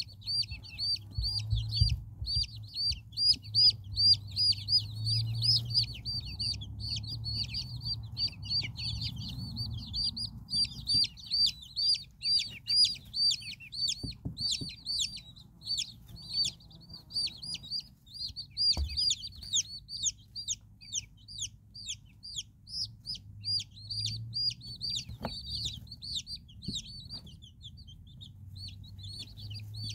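Chicks peeping without a break, quick high chirps several a second. Under them, a broody hen clucks low and softly, most in the first third and again near the end.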